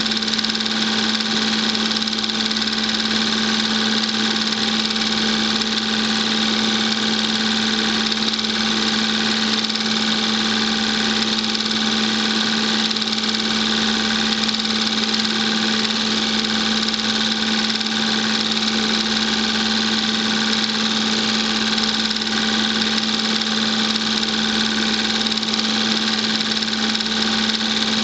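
Film projector running: a steady mechanical whir with a constant low hum that never varies.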